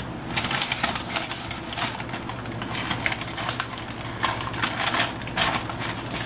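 Parchment paper crinkling and rustling in irregular crackles as it is lifted and pressed to roll a soft meatloaf into a log, over a low steady hum.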